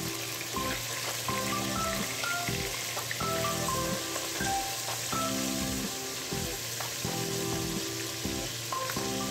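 Raw chicken pieces frying in hot oil in a pot, sizzling steadily, under background music with a plucked-sounding melody.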